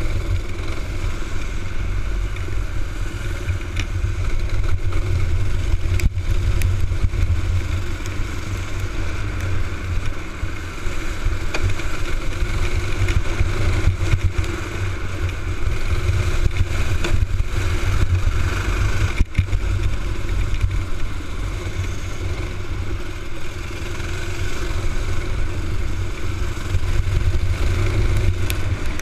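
Honda box-stock racing kart's small single-cylinder engine running hard at race speed, heard onboard, with heavy wind rumble on the microphone and other karts' engines close around it. The engine note rises and falls gently through corners, with a couple of sharp clicks.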